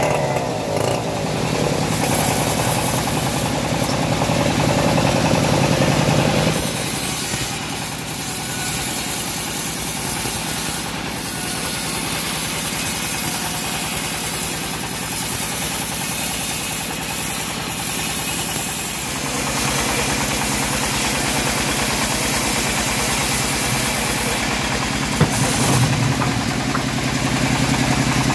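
Homemade engine-driven bandsaw mill running steadily while sawing a teak log. Its engine note changes abruptly twice.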